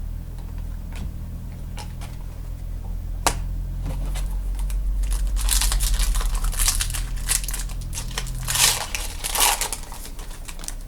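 Foil trading-card pack wrapper crinkling and tearing as it is opened. A few light clicks come first, then dense crinkling from about halfway, loudest in two bursts near the end, over a steady low hum.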